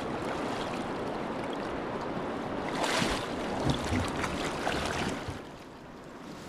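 River water rushing steadily, with a brief louder rush about three seconds in; the sound drops off somewhat near the end.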